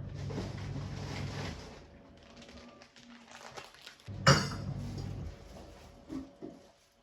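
Household handling sounds: a steady low hum for the first second and a half, then one sharp clack of a hard object about four seconds in, and a couple of faint knocks near the end.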